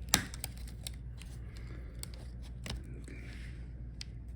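Sharp small clicks and taps from tools and parts being handled inside an opened laptop at the Wi-Fi card. The loudest click comes just after the start and another about two and a half seconds later, with a short soft scrape after it.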